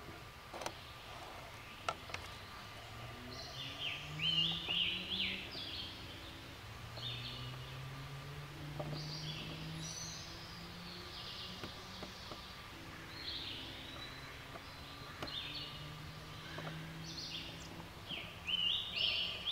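Woodland songbirds singing short, repeated phrases every few seconds over a faint low hum that slowly rises and falls. A few light clicks sound in the first couple of seconds.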